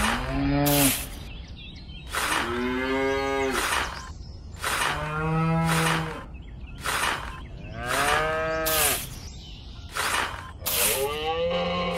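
Cattle mooing, long drawn-out calls about every three seconds, with sharp ticks repeating at a steady pace between them.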